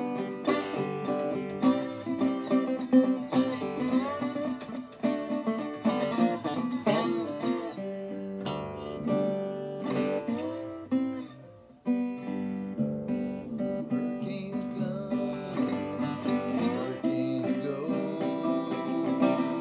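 Resonator guitar played lap-style, plucked melody with notes sliding in pitch. The playing fades almost to nothing for a moment a little past halfway, then picks up again.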